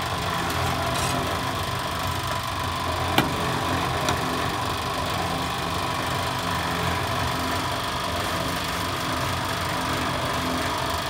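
Small electric drum concrete mixer running with a steady hum. A sharp knock sounds about three seconds in, with a lighter one a second later.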